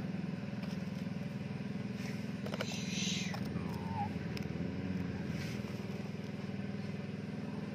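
A motor running steadily with a low, even drone. A few faint clicks come about two and a half seconds in, as the plastic bed of a toy dump truck is tipped and sand slides out.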